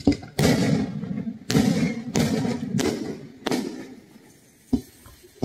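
Aerial fireworks bursting: about six loud bangs in quick succession, each trailing off in a short crackle, then two weaker bangs near the end.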